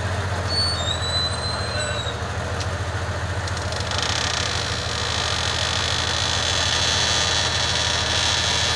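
Crane engine running steadily with a low hum while it lowers a suspended load. A short high whistle-like tone sounds about a second in, and a hiss grows louder from about halfway through.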